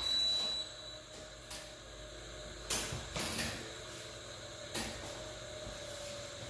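X-ray room equipment: a short high-pitched beep right at the start, then a few soft clicks and knocks of the machine being worked, over a low steady room hum.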